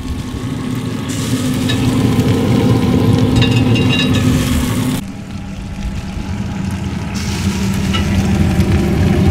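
Yoder YS640S pellet smoker running, its fan giving a steady hum and rush, with the turkey's juices sizzling and crackling on the hot grates. The hum drops slightly in pitch and the sound changes abruptly about five seconds in.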